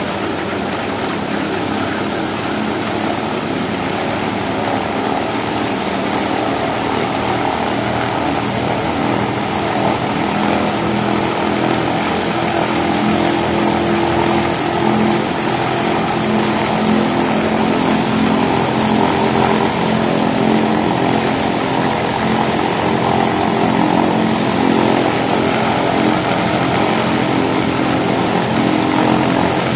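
Douglas DC-3 Dakota's Pratt & Whitney R-1830 Twin Wasp 14-cylinder radial engines running steadily on a ground run, getting slightly louder through the stretch.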